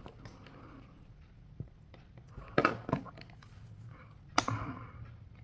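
Handling noise of plastic sunglasses and a fabric neck strap on a glass tabletop. Two quick clicks come about two and a half seconds in, and one more sharp knock comes near the end.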